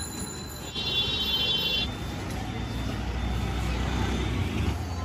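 Road traffic: a high tone sounds for about a second near the start, then the low rumble of a vehicle passing.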